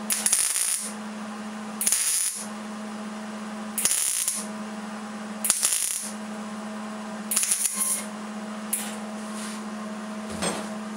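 MIG welder tacking on thin, rusty sheet steel: five short bursts of arc crackle about every two seconds, then a few brief pops near the end, over a steady low hum. It is stitching spot welds to fill holes in a rusted-out Ford F100 door skin.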